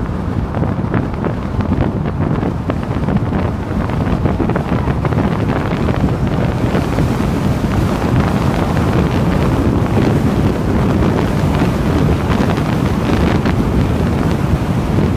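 Wind blowing across the microphone: a loud, steady rush of noise, heaviest in the low end.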